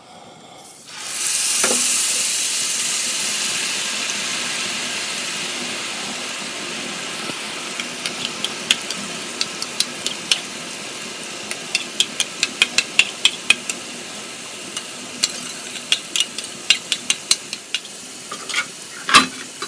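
Gram-flour batter dropping through a perforated ladle into hot oil, bursting into a loud sizzle about a second in that slowly eases. Over the second half many sharp pops and clicks come in, in quick clusters.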